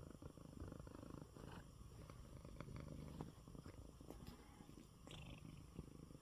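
A domestic cat purring softly and steadily while lying at rest.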